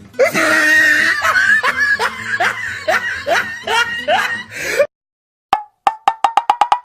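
Comedy laugh sound effect: loud laughter in a string of rising 'ha' bursts, about two to three a second, that cuts off suddenly after about five seconds. Then a quick run of short clicks that speed up toward the end.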